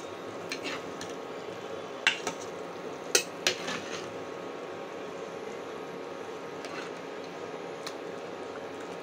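Steel ladle clinking against a steel bowl and a kadai several times in the first four seconds as fish pieces are scooped out of gravy, over a steady background hum.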